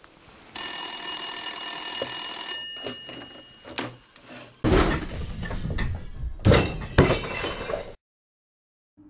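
An old rotary telephone's bell rings for about two seconds, then a run of loud crashes and sharp knocks follows, the two loudest knocks near the end, before the sound cuts off suddenly.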